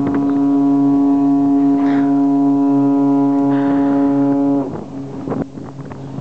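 A ferry's horn sounding one long, steady blast that cuts off about four and a half seconds in, followed by wind noise on the open deck.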